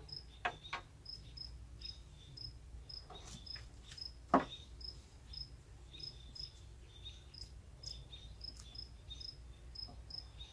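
Crickets chirping steadily, about two or three short high chirps a second, with a few faint clicks and one sharp knock about four seconds in.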